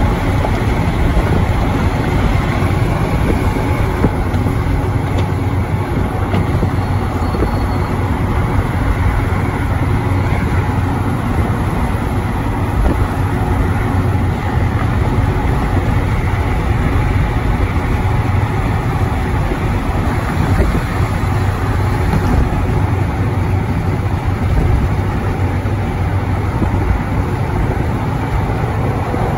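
Steady road noise of a car travelling at freeway speed: tyre and engine noise with a strong low hum throughout.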